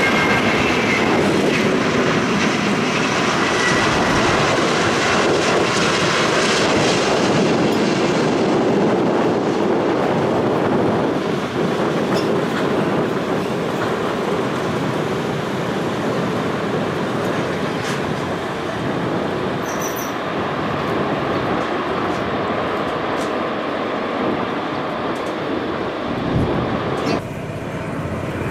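Jet engine roar of a twin-engine widebody airliner passing low on final approach and landing, strongest in the first several seconds. A steady roar follows as the jet rolls out along the runway after touchdown.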